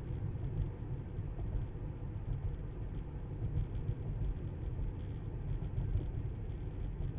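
Steady road and tyre noise from a Tesla car driving, heard as a low, even rumble.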